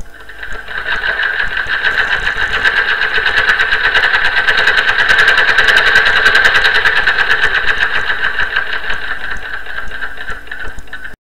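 Sewing machine running at speed with a fast, even stitching rhythm. It builds up over the first couple of seconds and cuts off abruptly at the end.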